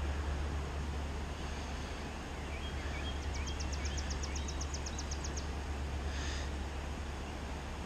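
Outdoor background with a steady low rumble, over which a songbird gives a few short notes and then a fast, even trill of about sixteen high notes lasting about two seconds, around the middle.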